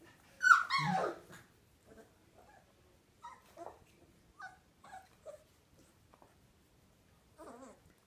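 Finnish Lapphund adult and puppy vocalising in play. A loud yelping cry about half a second in slides down in pitch. A string of short whimpers and yips follows, with one more near the end.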